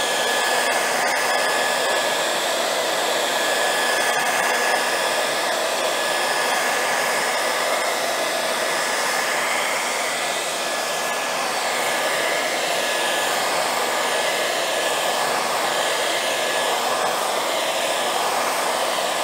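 Handheld hair dryer blowing steadily over a freshly painted panel, a constant rush of air with a thin steady whine, drying the paint onto the surface.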